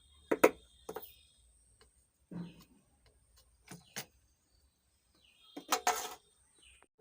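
Scattered sharp clicks and taps of small hand tools working on an amplifier's circuit board while two burnt diodes are desoldered and pulled out, with a short cluster of clicks near the end.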